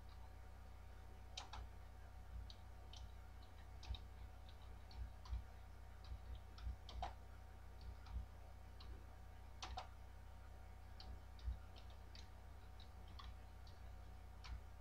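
Computer keyboard keys clicking faintly and irregularly as a sentence is typed, over a steady low hum.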